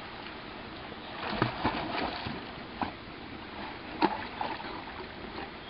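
Thrown rocks splashing into a creek pool, several impacts, with the sharpest splash about four seconds in.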